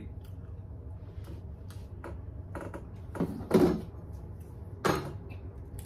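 Small clicks and knocks from handling and eating over a low steady hum, with two louder short noises about three and a half and five seconds in.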